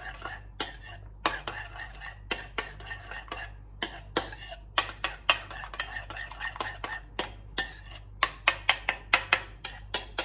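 A spoon stirring a thick yogurt-and-garlic sauce in a bowl, clinking against the bowl's sides in quick irregular ticks that come thicker near the end.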